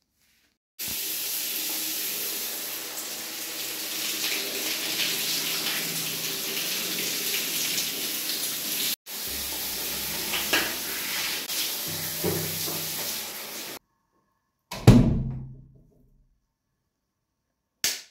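Water running steadily in two stretches with abrupt cuts between them, followed by one loud thump that rings on for about a second, and a brief noise at the very end.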